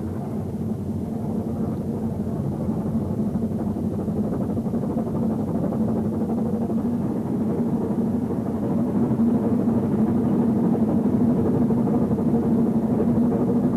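Brienz Rothorn Bahn rack railway train running uphill: a steady rumbling and rattling ride noise that grows gradually louder.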